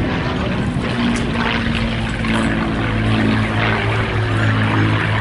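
Piston-engined propeller warbird flying overhead, its engine a steady drone.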